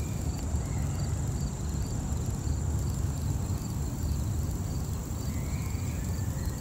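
Insects chirping outdoors, a steady high buzz with regular chirps about two a second, over a steady low rumble. A few short higher chirps stand out near the start and toward the end.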